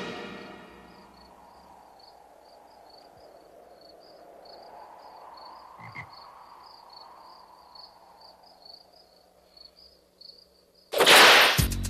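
Faint night-time ambience of chirping crickets and frogs, about three chirps a second, under a soft swell that rises and fades around the middle. A music sting dies away at the start, and loud music bursts in near the end.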